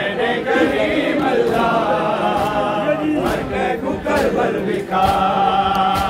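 A group of men chanting a Punjabi noha, a Muharram mourning lament, in unison without instruments, with long held and bending notes.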